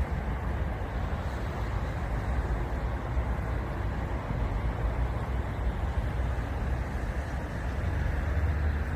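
Winter wind blowing through dry reeds, a steady rushing that rises and falls slightly in gusts, with a heavy low rumble of wind on the microphone.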